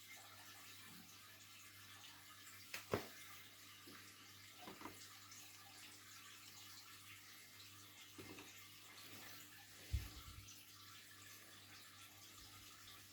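Near silence: faint steady hum and room tone, broken by a few soft knocks, the loudest about three seconds in and about ten seconds in.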